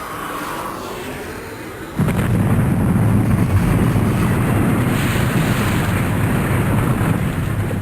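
Thunder during a severe thunderstorm: a sudden crack about two seconds in, then a loud low rolling rumble that carries on.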